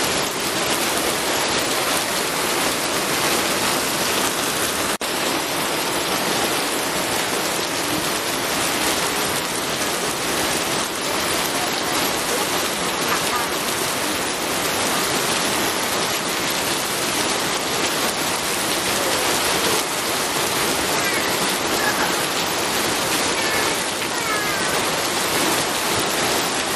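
Rain falling steadily, an even hiss of many drops without let-up, with one brief dip in level about five seconds in.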